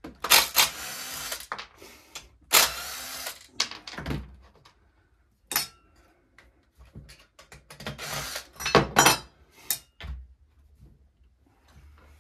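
Cordless impact driver run in several short bursts, the longest about a second, backing out screws on a chainsaw being taken apart. Light clunks and clicks of parts being handled come between the bursts.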